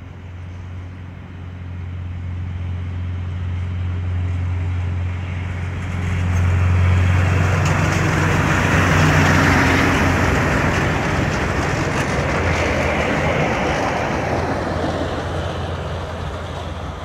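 A DSM 250 self-propelled railway maintenance vehicle and its flat wagon passing close by. Its engine's steady low hum and the running noise of the wheels on the rails grow louder, peak about seven to ten seconds in as it goes past, then fade as it moves away.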